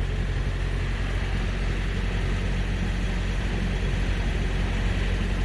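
Steady drone of a running reefer (trailer refrigeration unit), an even low hum that holds without change.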